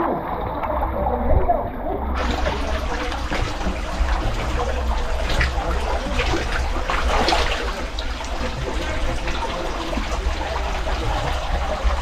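Water dripping and trickling from a cave roof into a pool, with splashing and sloshing close to the microphone.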